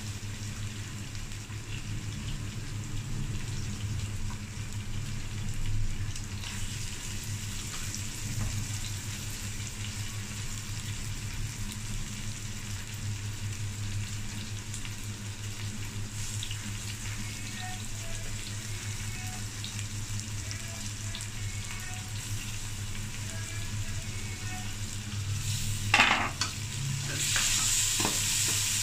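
Chopped onion and garlic frying in ghee in a metal pot, a steady sizzle as small tomato pieces are dropped in. Near the end a utensil knocks sharply against the pot and stirring brings a louder sizzle.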